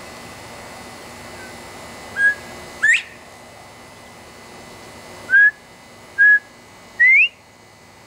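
Male northern bobwhite whistling its 'bob-white' call twice. The first is a short flat note followed by a sharply rising one; the second, about two seconds later, is a three-note 'bob-bob-white' with two flat notes and a rising upslur. This is the male's advertising call, which the uploader takes for a mating call.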